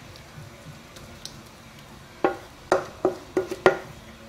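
A wooden spoon scraping a thick minced-meat mixture out of a mixing bowl into a glass baking dish, with about six quick knocks of the spoon against the dishes in the second half.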